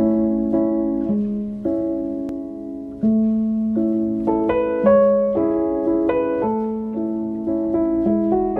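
Calm background piano music, notes and chords struck about twice a second and left to ring.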